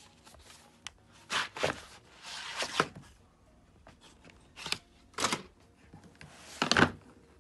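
Maped Color'Peps Brush plastic felt-tip markers clicking and clattering against each other as they are taken out of their cardboard tray and set down on a notebook, with a short scraping rub of cardboard about two seconds in. Five or so separate knocks, the loudest near the end.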